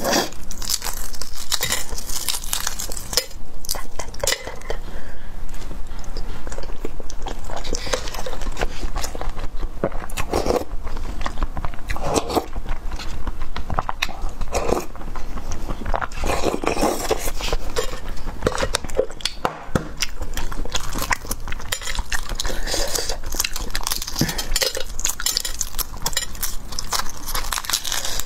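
Close-miked eating sounds: a person biting and chewing food, with irregular wet mouth clicks and smacks.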